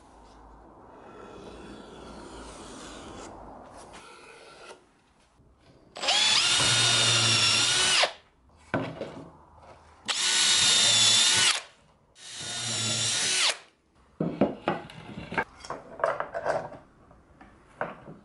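Electric drill boring into plywood in three runs of about two seconds each, its motor whine wavering in pitch as it cuts. Afterwards come a series of sharp clicks and knocks as a bar clamp is fitted and tightened.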